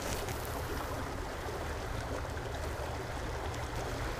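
Steady rush of a flowing stream, an even wash of water noise with a low rumble underneath.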